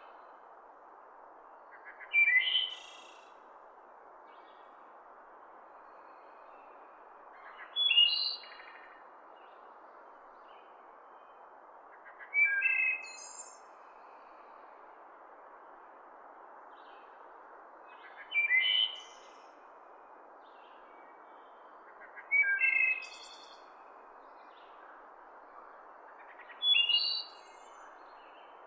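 Wood thrush singing: six short phrases, one every four to six seconds, each about a second long and ending in a higher trill. A steady low hiss lies underneath.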